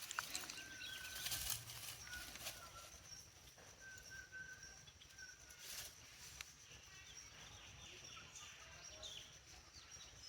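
Faint outdoor ambience: a steady high-pitched drone with scattered short chirping calls and a few light clicks.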